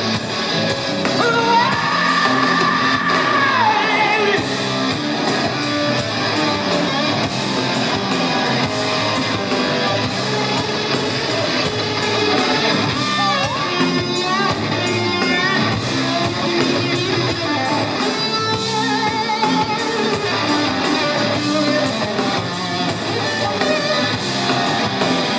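Live rock band playing an instrumental break: electric guitar lead lines with held and bending notes over bass and drums, cymbals struck steadily.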